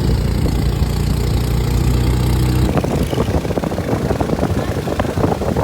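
A motor engine idling steadily. About halfway in it cuts off abruptly and gives way to an uneven, crackling rush of splashing noise.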